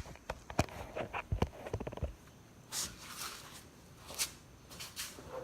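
A run of light clicks and knocks, then a few short rustling sounds about three, four and five seconds in, typical of gear or parts being handled.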